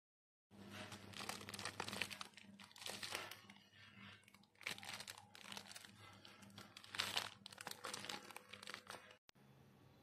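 Clear plastic packaging bags crinkling and rustling in irregular bursts as they are handled. The crinkling stops suddenly near the end, leaving a faint steady low hum.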